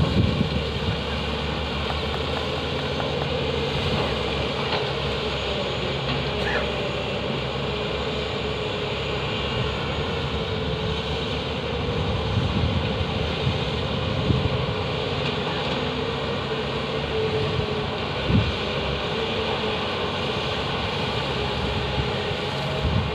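Heavy diesel engines of Tata Hitachi hydraulic excavators and a Volvo 460 mining tipper running steadily while the excavators load coal, a constant drone with a few brief thumps.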